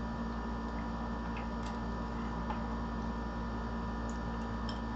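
Steady electrical hum, with a few faint small clicks as an M.2 SSD is handled and slid into its motherboard slot.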